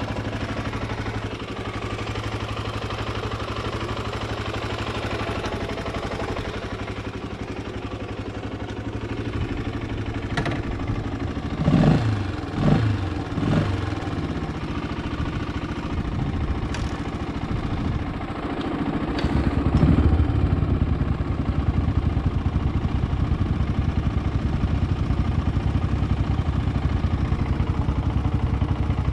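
A vehicle engine running steadily, with a few knocks and rattles near the middle. The engine grows louder and deeper about two-thirds of the way through.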